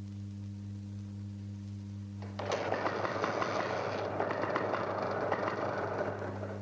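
Steady low hum, then a little over two seconds in an old Benelli 125 motorcycle's engine starts up and runs, a dense rattling sound that eases slightly near the end.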